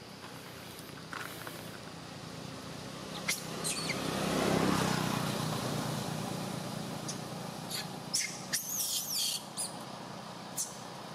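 A motor vehicle passing on a nearby road, its noise swelling to a peak about four seconds in and then fading. Birds chirp briefly near the end, over a few faint clicks.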